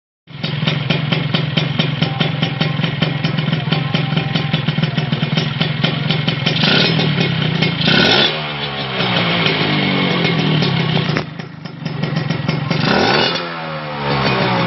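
Motorcycle with an RF aftermarket exhaust pipe idling with a quick, even exhaust beat. The throttle is blipped twice, about 6.5 and 8 seconds in, and the revs fall back each time. A further rev about 13 seconds in dies away again.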